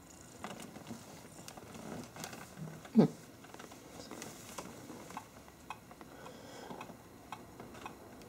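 Two cats grooming and tussling at close range: soft fur rustling and scattered small clicks, with one brief, louder voice-like sound about three seconds in.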